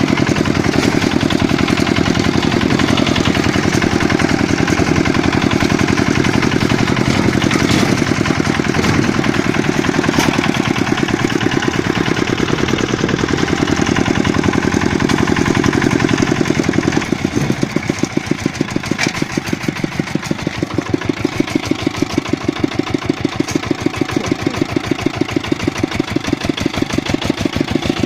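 Walk-behind tractor's single-cylinder engine running steadily, then dropping to lower speed and a quieter level a little past halfway, where each firing stroke is heard separately.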